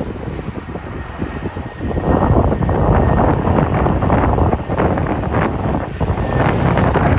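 Lockheed C-130 Hercules's four turboprop engines running as it comes in low on approach, growing louder about two seconds in. Wind buffets the microphone throughout.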